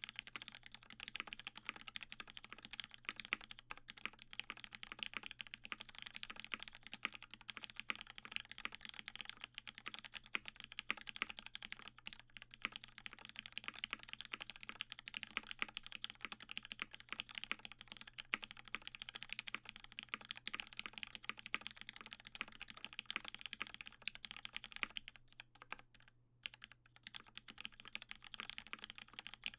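Steady fast typing on a Matrix 8XV2.0 custom mechanical keyboard: lubed Hyperglide Cherry MX Black linear switches in an aluminium plate, with GMK keycaps. It pauses briefly near the end.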